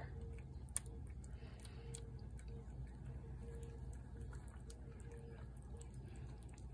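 Feral tabby cat eating wet food from a plate: faint, irregular wet clicks of chewing and licking, with one sharper click about a second in, over a low steady rumble.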